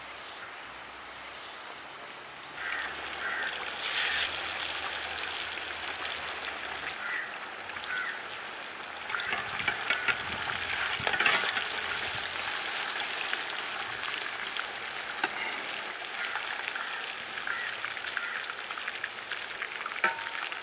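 Beer-marinated chicken leg pieces deep-frying in a wok of boiling oil: a steady sizzle that grows louder about two and a half seconds in as the pieces go in. A steel ladle stirs and scrapes through the oil, with sharper crackles near the middle.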